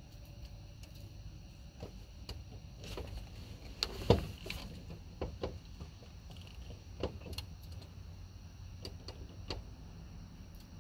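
Scattered short, sharp pops and cracks of distant firecrackers, the loudest about four seconds in, over a steady high-pitched hum and a low rumble.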